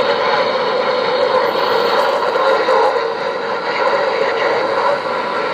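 CB radio tuned to channel 19, its speaker giving out a steady, loud hiss of static from an open, unsquelched receiver.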